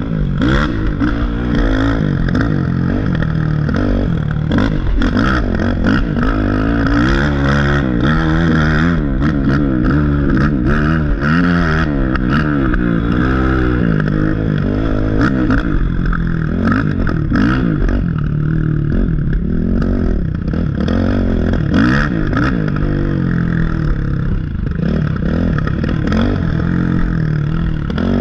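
Race ATV's engine revving up and down over and over as the rider works the throttle through a wooded dirt trail. Frequent knocks and rattles come from the quad bouncing over rough ground, close to an on-board camera.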